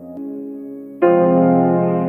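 Slow ambient meditation music of sustained keyboard chords. A soft chord change comes just after the start, then a louder, piano-like chord is struck about a second in and rings on, slowly fading.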